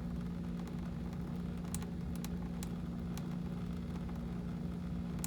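Steady low machine hum at a constant pitch, with a few faint clicks.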